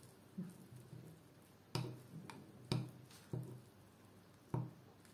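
Teaspoon stirring honey and black pepper into a thick paste, knocking against the side of the cup in about six irregular clinks.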